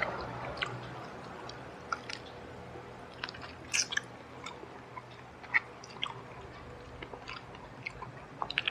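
A person chewing fried chicken, with scattered short crunches and wet mouth clicks over a faint steady low hum.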